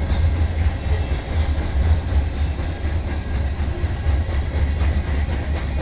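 Freight train's covered grain hopper cars rolling past, a steady low rumble of steel wheels on the rails.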